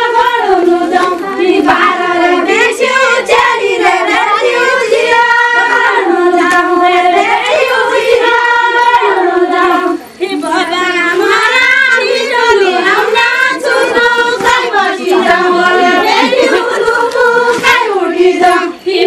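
A group of women singing a Far-Western Nepali festival folk song together in unison, as a circle dance song. The singing stops briefly about ten seconds in and again near the end.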